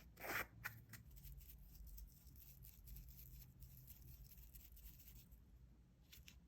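Near silence: room tone with a faint low hum, and a few faint short rustles in the first second.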